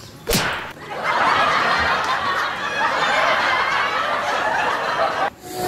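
A sharp smack, then a canned laugh track of a crowd laughing for about four seconds that cuts off abruptly near the end.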